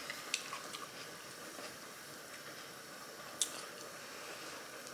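Soft, wet chewing of japchae glass noodles, with faint mouth smacks and two sharper clicks, one about a third of a second in and one past the three-second mark.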